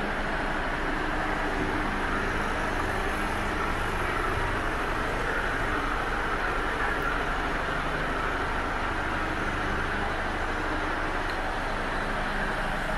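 Steady low rumble and hiss of a large diesel truck engine idling, unchanging throughout.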